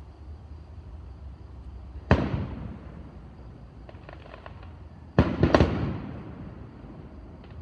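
Aerial fireworks shells bursting: one bang about two seconds in, then two more in quick succession about three seconds later, each trailing off in a rolling echo. A few faint crackles come between them.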